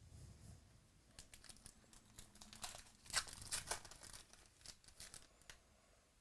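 Faint crinkling and crackling of plastic wrapping as trading cards are handled, with a cluster of louder crackles about three seconds in.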